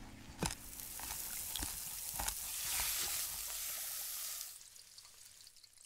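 A crackling hiss with scattered sharp clicks, growing to its loudest about halfway through and dying away over the last second and a half.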